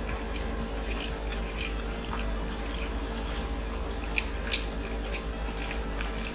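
Close-miked chewing of sauced Korean fried chicken: scattered wet smacks and crisp crackles, with two louder clicks a little past four seconds in, over a steady low hum.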